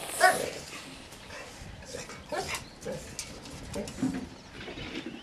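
A dog barking: one loud bark right at the start, then a few shorter, quieter barks.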